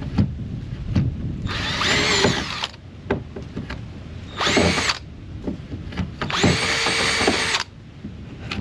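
Cordless drill with a long bit run in three short bursts, its motor whining up to speed and winding down each time, drilling a mounting hole. A few light knocks sound between the bursts.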